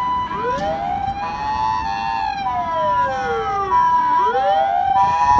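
Japanese ambulance's electronic siren sounding its two-note "pee-po" hi-lo call, with the remote-siren wail laid over it to warn traffic at an intersection. The wail rises sharply, falls slowly to a low about four seconds in, then rises again.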